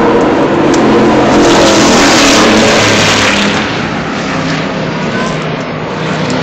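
Stock car engine noise, with a loud swell that builds about a second in and fades after about three and a half seconds.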